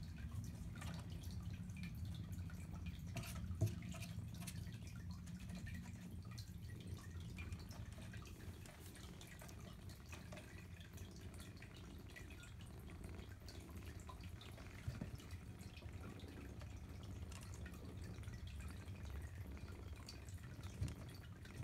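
Soft, wet clicking and smacking of nursing kittens suckling, with a few sharper ticks, over a low steady rumble.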